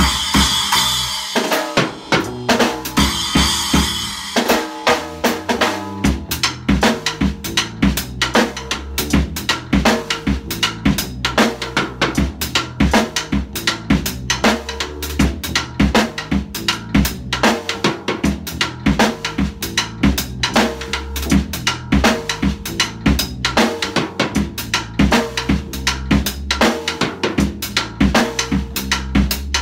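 Drum kit playing a funk groove with bass drum, snare and rimshots, with cymbal crashes in the first few seconds. Underneath runs a looped bass line laid down on a loop pedal.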